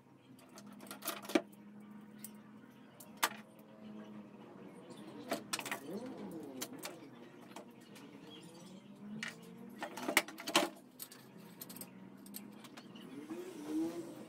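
Scattered knocks and clicks of a small wooden slatted swing seat and its rope being handled and adjusted on a wooden workbench, with a faint steady low hum underneath.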